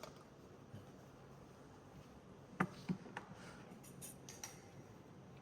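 Faint handling noise of plastic breathing tubes and connectors being fitted: a few light clicks and taps, starting about two and a half seconds in.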